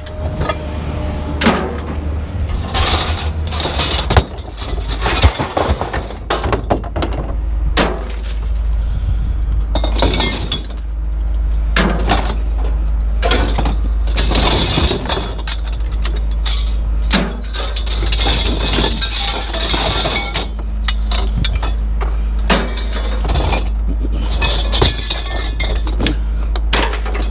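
Loose scrap and debris being handled and tossed, clattering and clinking with many sharp impacts and some glassy breaking, over a steady low rumble.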